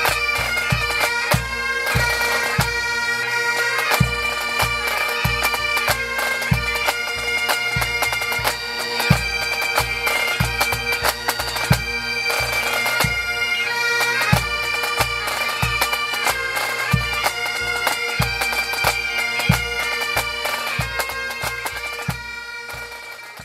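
Pipe band playing: Great Highland bagpipes sounding a steady drone under the melody, with drums beating a regular pulse. The music fades out at the very end.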